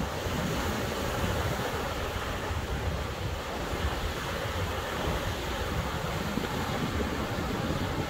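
Ocean surf washing steadily on the shore, with a breeze buffeting the microphone in a low, uneven rumble.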